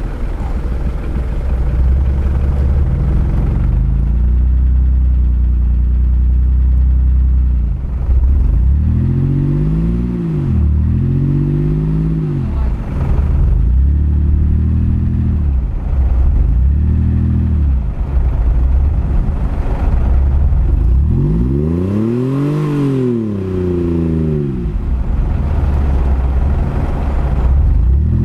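Mercedes-Benz G-Class engine running under load, revving up and falling back again and again as the SUV sits stuck in mud. Its differential locks are engaged, but the revving does not free it. The highest rev comes a little after two-thirds of the way through.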